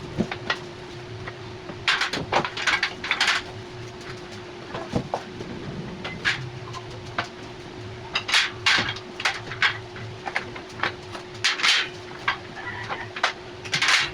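Steel storage rack parts being handled and fitted together: sharp metal knocks and clatter in irregular clusters. A steady hum runs underneath.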